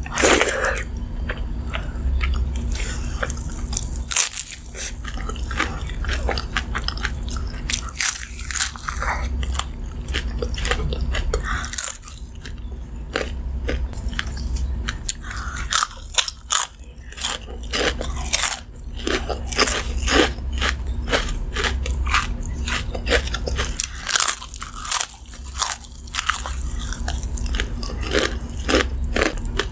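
Close-miked eating: a person bites and chews crunchy food, with dense, irregular crisp crunches and crackles that pause briefly now and then.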